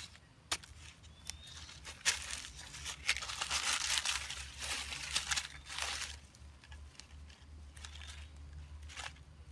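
Dry, crumbly soil dug and scraped with a pointed digging stick: a few sharp knocks as it strikes, then dense scraping and crumbling of earth for several seconds. Softer scraping and crunching of loose earth and dry leaves as hands rake it out near the end.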